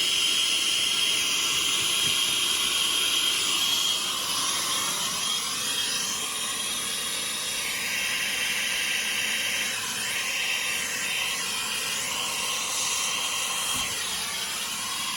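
Gas soldering torch flame hissing steadily while heating a copper pipe fitting to sweat-solder the joint; the hiss eases a little about four seconds in.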